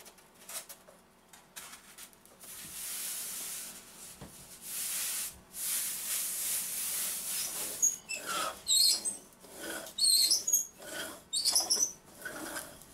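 Hands sliding over and pressing down a sheet of pink polystyrene insulation foam onto two-sided tape. It gives a soft rubbing hiss, then a series of short, high squeaks from the foam in the last few seconds.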